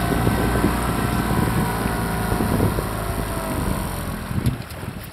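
Boat engine running steadily while the boat follows a hooked fish, then dropping away sharply about four and a half seconds in as it is throttled back.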